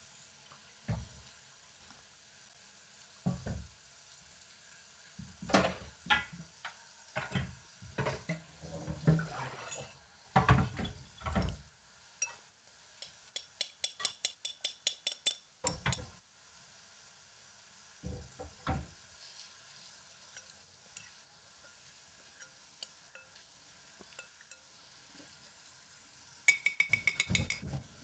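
Metal utensils knocking and scraping against pans and dishes during frying. There are scattered clatters, then two quick runs of ringing clinks, one about halfway through and one near the end, over a faint steady sizzle of frying.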